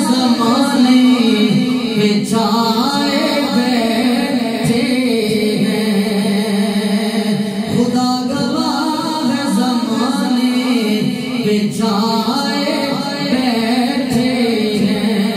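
A man singing a naat, a devotional Urdu song in praise of the Prophet, into a microphone. His melodic voice is amplified through the hall's sound system and rises and falls in long phrases over a steady low drone.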